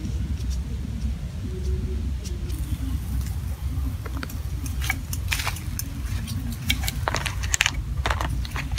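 Small kitchen knife cutting a lime: a run of sharp clicks and scrapes from about four seconds in, loudest near the end, over a steady low rumble.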